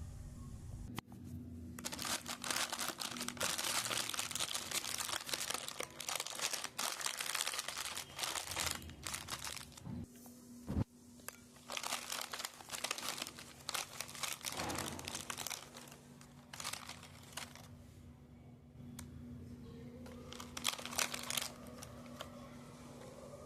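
Close-up crinkling and tearing of a biscuit packet, in several bouts with short pauses between them.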